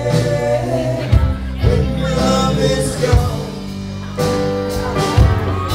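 Live rock band playing: a male singer over drums, bass, electric guitars and keyboard, heard from the audience.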